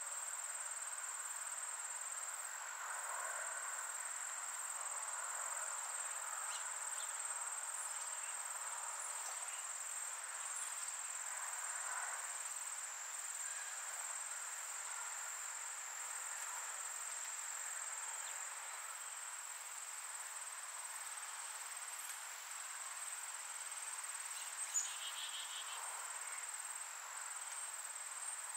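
A steady, high-pitched insect trill that runs without a break over a faint outdoor hiss. A single sharp click comes near the end.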